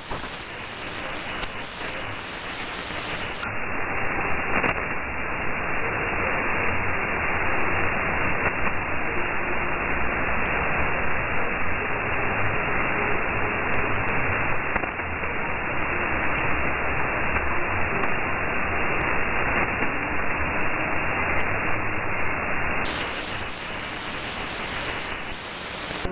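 Shortwave receiver in AM mode giving out steady hiss and static, with a very weak broadcast station on 6155 kHz buried in the noise. About three seconds in the treble is cut off and the hiss turns duller. It opens up again near the end.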